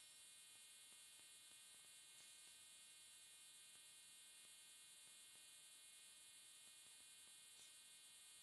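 Near silence: only a faint steady hiss and hum from the recording itself, with no train or other sound.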